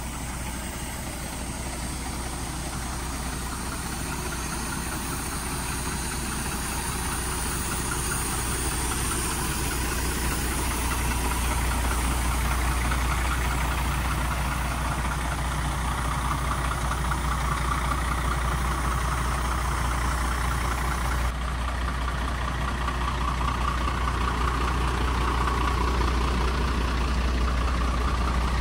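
MAN TGM 18.250 truck's six-cylinder diesel engine idling steadily, growing gradually louder.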